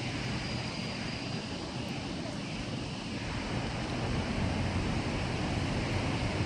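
Steady outdoor city background noise, a low rumble of distant traffic, growing a little louder about four seconds in.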